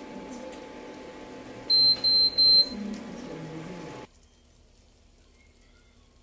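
Three short, high electronic beeps in quick succession from a kitchen appliance's beeper, over a steady background hiss that cuts off suddenly about four seconds in.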